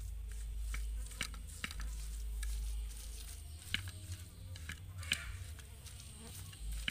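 Stone pestle grinding and scraping grated coconut and spice paste in a clay mortar (ulekan and cobek): irregular scrapes and taps over a low rumble.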